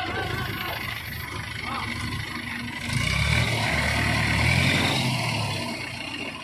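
Hydraulic crane's engine running and revving up about three seconds in as it lifts a heavy truck cab, with a whine over the engine, then easing back near the end.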